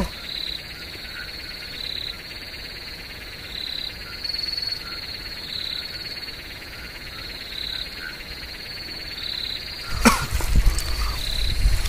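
Evening chorus of frogs and insects: a steady high chirring trill with short pulsed calls repeating every second or so. About ten seconds in, louder rustling and knocking noise breaks in over it.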